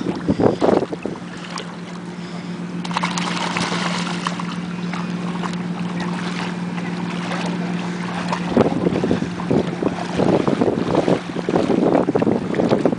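Water splashing around a wading English bulldog's legs in shallow seawater, with wind buffeting the microphone. A steady motor drone sits under it and fades after about eight seconds, as the splashing picks up.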